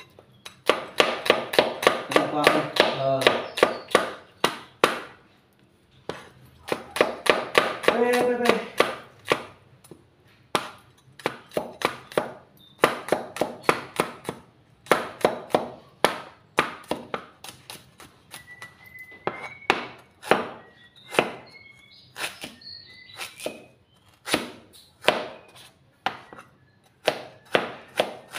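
Cleaver chopping shallots, garlic and ginger on a cutting board: quick runs of knife strikes on the board, several a second, with short pauses between runs.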